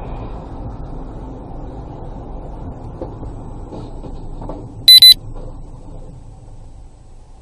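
Low, steady rumble of a car on the move, picked up inside the cabin by a dashcam, fading away near the end. About five seconds in, two short, very loud electronic beeps.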